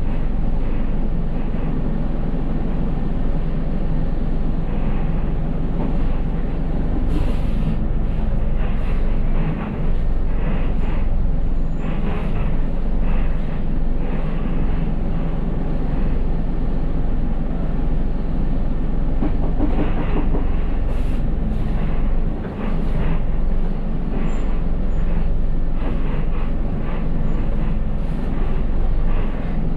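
City bus running along the street, heard from inside the cab: a steady low engine and drivetrain rumble, with scattered clicks and rattles from the cabin fittings.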